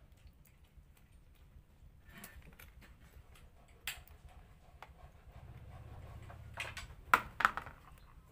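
Metal spoon scraping passion fruit pulp out of the halved rind, with scattered small clicks and scrapes, and two sharp louder clacks about seven seconds in.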